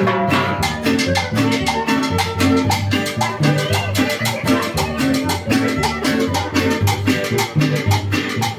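Live band playing a Latin dance tune on upright bass, guitar, violin and drums, with a steady beat and a repeating bass line.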